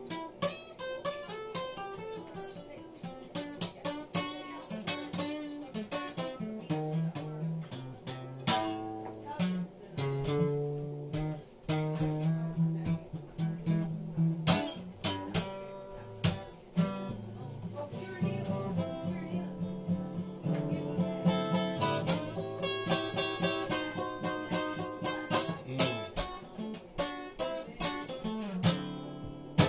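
Acoustic guitar playing a tune of picked notes over low bass notes, with a busier stretch of chords about two-thirds of the way through.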